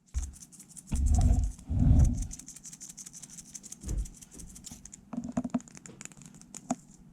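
ASMR tapping and scratching: quick, light, irregular taps and scratches, with two louder, deeper rubbing or brushing sounds about one and two seconds in.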